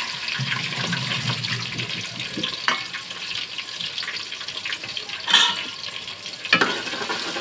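Whole spices, crushed garlic and green chillies sizzling in hot oil in an aluminium pot, a steady crackling hiss with a few louder pops, the loudest about five seconds in. The tempering is being fried until it browns.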